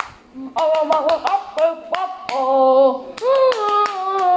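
A child singing a wordless tune in long held notes while clapping his hands over and over, the claps coming in quick runs.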